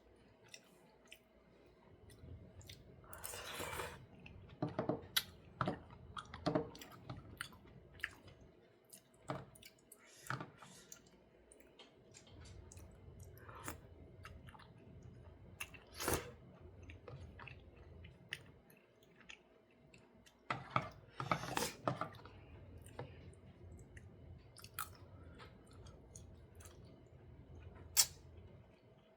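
Close-up chewing of jjimdak, Korean braised chicken: irregular wet mouth sounds and sharp clicks, with a few louder bursts scattered through.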